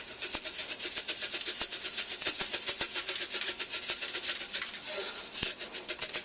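Dried onion flakes being shaken out of a spice container, a fast, steady run of rattling shakes.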